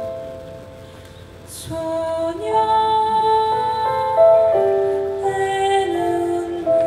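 Live instrumental introduction of a slow ballad: a melody in long held notes over sustained chords, quieter at first and swelling fuller about two seconds in.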